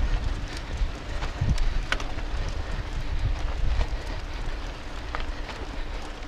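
Wind buffeting the mountain bike's handlebar-mounted camera microphone over a steady rumble of knobby tyres rolling on a dirt trail. Scattered sharp clicks and rattles come from the bike jolting over the rough ground.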